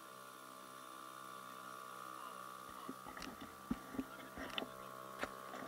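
HDX T2 BMS two-stroke outboard motor running steadily at constant speed, pushing an inflatable boat. From about halfway in, a few sharp knocks and thumps sound over the steady hum.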